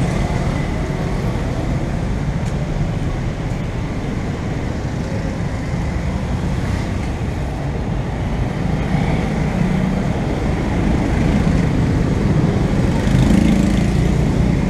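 Busy street traffic: motor scooters and cars passing on the road close by. Their engines and tyres make a steady rumble that grows somewhat louder near the end.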